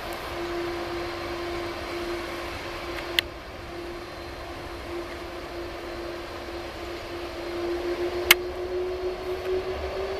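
Jet engines of a Delta wide-body twinjet airliner running at low power as it rolls along: a steady hum carrying one whining tone, whose pitch begins to rise slightly near the end. Two sharp clicks, one about three seconds in and one near the end.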